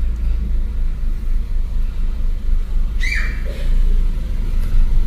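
Car engine idling while parked, a steady low rumble heard from inside the cabin. A short high-pitched cry cuts in about three seconds in.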